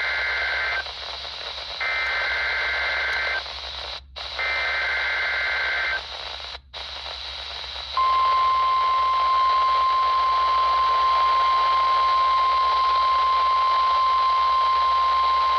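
NOAA Weather Radio EAS alert from a RadioShack 12-254 weather radio's speaker over reception hiss. It plays the buzzing bursts of the SAME digital header, three in all with the first already under way, each about a second and a half. About eight seconds in, the steady single-pitch 1050 Hz weather radio alert tone starts.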